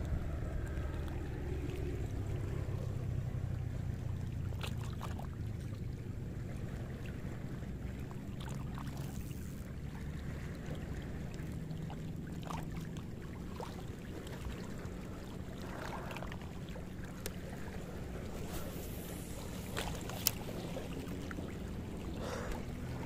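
Steady low rumble of wind and water at a rocky shoreline, with a few faint clicks and one sharp tick about twenty seconds in.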